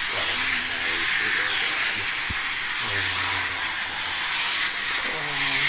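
Vacuum cleaner running with a steady, loud hiss as its nozzle is worked over a dog's coat.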